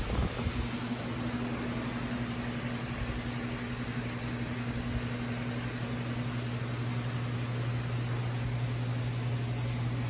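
Electric fans running with a steady whoosh of air. A low, even hum comes in about half a second in and holds.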